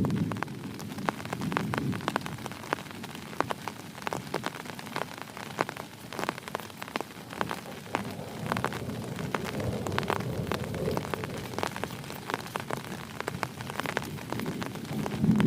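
Heavy rain falling steadily, with many separate drops striking close by as sharp ticks. A low thunder rumble fades out about a second in, and another begins near the end.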